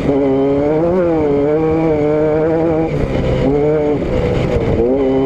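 Car engine and exhaust running under way, the note rising and falling with engine speed. It drops away about three seconds in and climbs back near the end, over a steady low rumble of road and wind noise.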